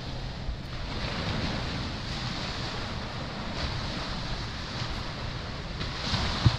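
Small waves washing onto a sandy beach, with wind buffeting the microphone as a steady low rumble. A short low thump comes near the end.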